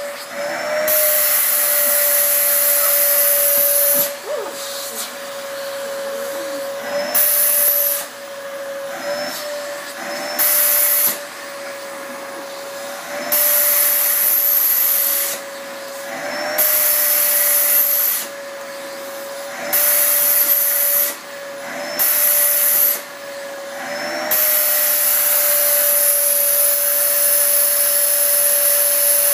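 Vacuum cleaner running with a steady motor whine while its nozzle is drawn over a cat's fur. The rushing-air hiss swells loud and drops away again every couple of seconds.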